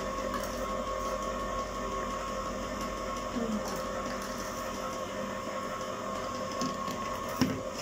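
Ice cream maker running with a steady motor hum, getting ready while it waits for the mix. A single sharp knock near the end.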